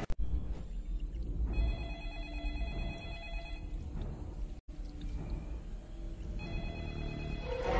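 Telephone ringing in two long rings a few seconds apart, over a steady low rumble.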